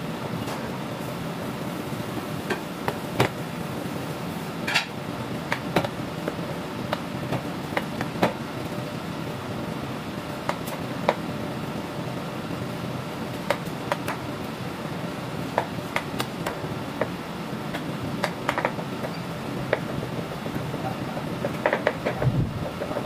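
Kitchen work: scattered, irregular knocks and clinks of utensils and dishes over a steady background hum, with a short flurry of knocks near the end.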